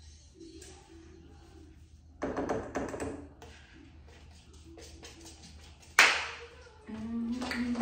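A single sharp tap about six seconds in, a mixing bowl knocked against the brownie pan as batter is tipped out. A short burst of voices comes about two seconds in, and a held, steady vocal note near the end.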